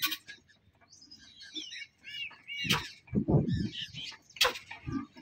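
Small birds chirping in short repeated calls, with a few sharp knocks and a brief low rumble from hands-on work at the engine.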